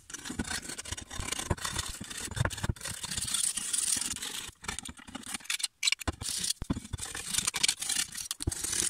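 A hand scraper working along a steel lawn mower blade, scraping off dried grass and mud in repeated short strokes, with a few brief pauses.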